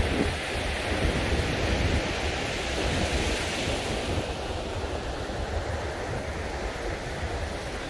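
Steady rush of ocean surf mixed with wind buffeting the microphone, the surf swelling briefly about three seconds in.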